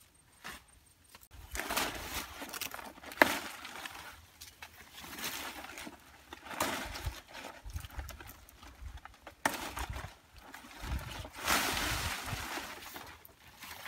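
Large tree leaves being pulled off by hand: dry, crackly rustling comes in several bursts as the branches are worked, with a couple of sharp snaps of stems breaking, the loudest about three seconds in.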